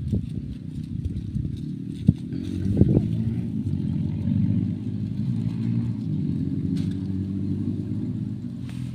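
Low engine rumble that grows louder about two and a half seconds in and eases off near the end, with a couple of sharp knocks just before it swells.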